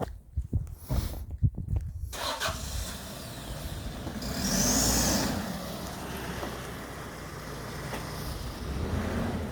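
A few knocks, then about two seconds in a vehicle engine starts up and keeps running with a steady low rumble. It swells briefly near the middle, with a high whine over it.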